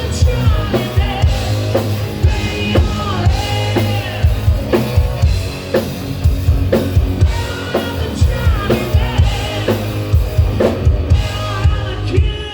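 Music: a song with a steady drum-kit beat and singing.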